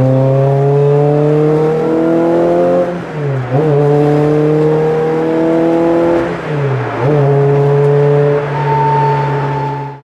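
Peugeot 306 GTI-6 S16's 16-valve four-cylinder engine heard from inside the cabin, pulling hard with its note climbing steadily. It dips and picks up again at a lower pitch twice as the driver shifts up, then holds steady near the end before cutting off abruptly.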